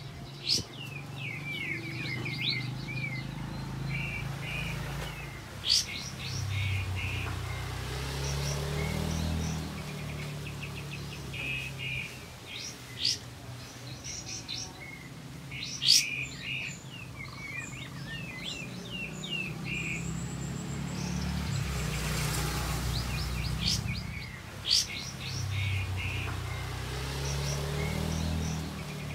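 Kapas tembak songbird singing continuously: quick rattling trills mixed with short, sharp rising whistle shots, the loudest of them five times. A low wavering hum runs underneath.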